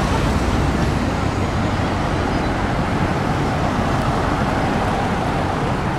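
Road traffic noise: steady engine and tyre sound as cars drive close past, a large SUV and a saloon among them.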